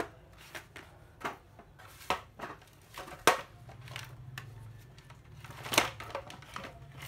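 Scattered plastic clicks and knocks from power-tool battery chargers and their cords being handled and set down, with two louder knocks, one about a third of the way in and one near the end.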